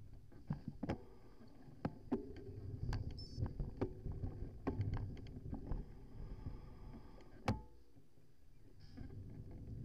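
Bicycle ridden over a bumpy surface, heard through its handlebar-mounted camera: a low tyre rumble with irregular knocks and rattles from the bumps, the loudest knock about seven and a half seconds in.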